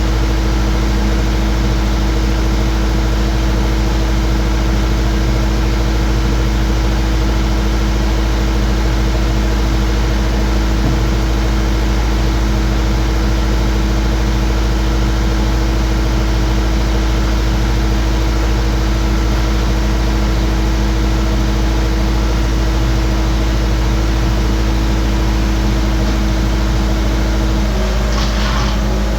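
Skid steer engine running at a steady speed, a low rumble with a constant hum. Near the end its note shifts.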